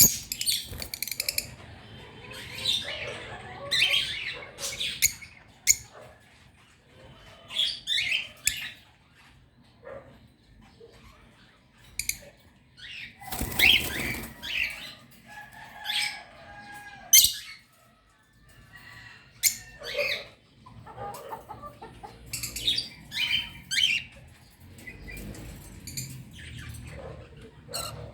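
Birds chirping and calling in irregular, overlapping bursts of short high notes, with bouts of wing flapping.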